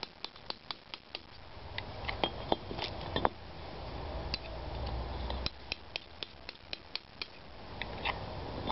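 Old lime mortar being chipped and scraped off a brick with a small hand tool: a run of light, sharp taps at uneven intervals, with a few louder knocks about two to three seconds in. A low rumble swells in the background through the middle.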